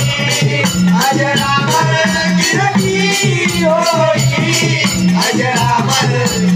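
Konkan jakhadi (Shakti-tura) folk music: a singing voice over a regular drum beat, with rattling percussion.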